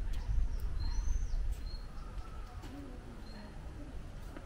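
A small bird calling in short, high, single-pitched chirps, repeated irregularly about every half second, over a low steady background rumble.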